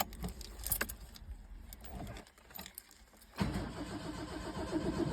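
Car keys jingling and clicking, then, about three and a half seconds in, the starter suddenly cranks the Subaru Brumby's flat-four engine over in a fast repeating rhythm, getting louder near the end as it turns over after fresh oil and a new filter.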